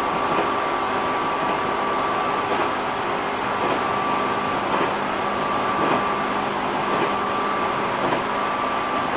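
JR 205 series 600 electric commuter train running at steady speed, heard from inside the passenger car: a steady rumble of wheels and motors with a thin whine, and faint knocks about once a second.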